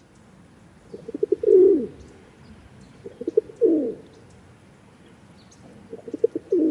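Rock pigeon cooing, three times. Each coo is a few quick stuttering notes that slide into a longer, falling coo.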